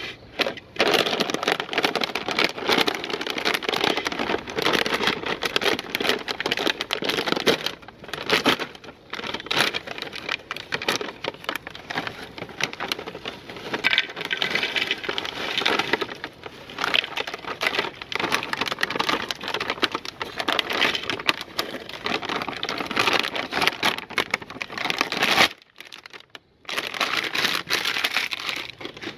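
Meat grinder crushing crunchy Bingo! Mad Angles snack chips, a dense, irregular crackling and crunching that stops briefly near the end and then resumes.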